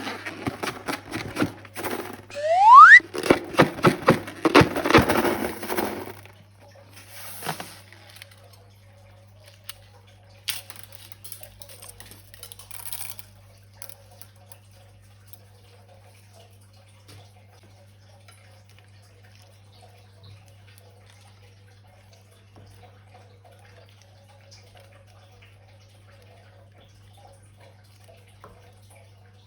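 Wet slime squelching and being squeezed, with a short rising squeak about three seconds in. It stops after about six seconds, leaving faint handling sounds and then a steady low hum.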